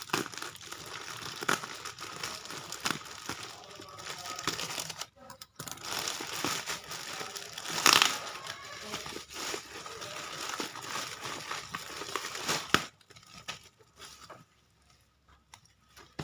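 Parcel packaging being handled and torn open: continuous crinkling and rustling with small crackles, a louder tear about halfway through, and a sharp snap near the end, after which it goes much quieter.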